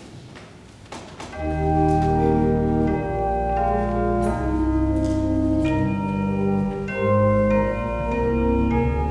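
Church organ starting to play about a second and a half in: full sustained chords over a deep bass, the postlude that closes the service. A few faint knocks come before it.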